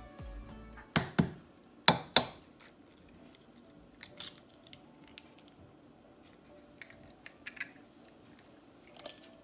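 Eggs being cracked over a ceramic bowl: a few sharp clicks of eggshell knocking and breaking, the loudest about one and two seconds in, then fainter scattered clicks of shell being pulled apart and set down.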